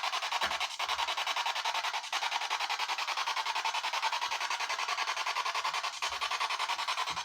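A continuous rasping hiss with a fast, even pulse running through it.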